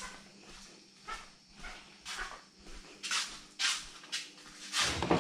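Footsteps in sandals on a hard floor, about two steps a second, with a louder, deeper knock near the end.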